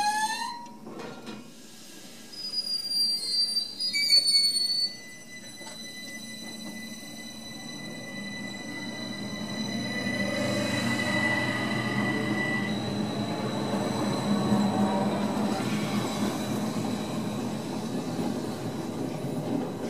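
Rhaetian Railway electric train on the Bernina line: a rising electric whine is cut off in the first second. Sharp, high wheel squeals follow a few seconds in, then the rumble of the train's wheels on the rails builds steadily as it approaches on the curving track.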